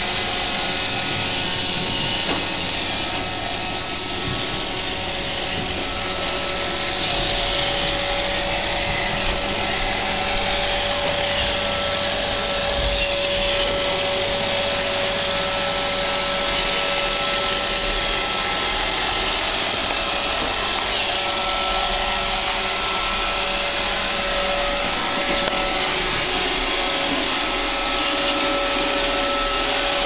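Roomba robot vacuum running: a steady whirring of its vacuum motor and brushes, with a steady whine over it, getting a little louder about seven seconds in.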